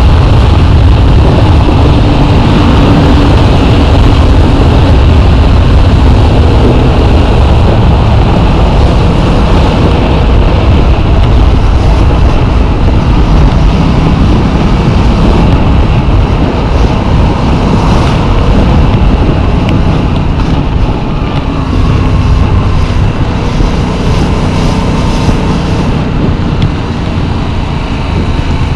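Yamaha MT-07's parallel-twin engine under way, half buried in heavy wind rumble on the rider's chest-mounted camera, its pitch rising and falling with throttle and gear changes. The sound gets a little quieter over the last several seconds.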